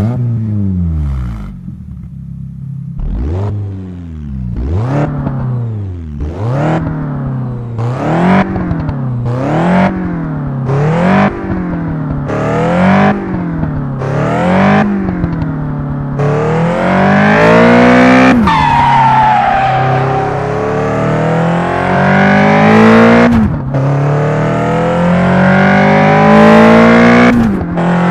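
A 1990 car's engine revving up and dropping back over and over, about every second and a half. It then pulls away at higher revs with road noise, the revs falling off sharply a few times as it goes.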